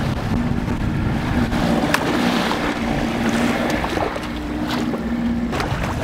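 Small skiff's outboard motor running at a steady hum, with wind and choppy water rushing past the hull and a few faint clicks.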